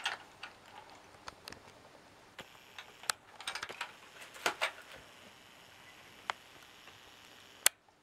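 Hands handling a plastic dial spring scale and other small objects, making scattered light clicks and taps. A quick run of clicks comes about three and a half to five seconds in, and one sharp click comes near the end.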